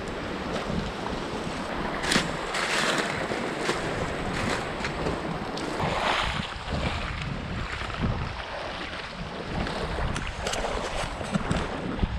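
Footsteps wading through a shallow, rocky stream, water splashing around the legs now and then, with wind buffeting the microphone.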